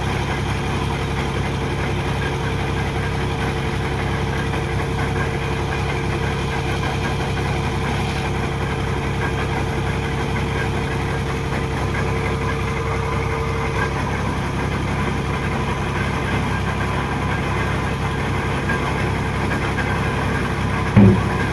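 Engine of piling machinery running steadily at a constant pace. Two brief louder sounds come near the end.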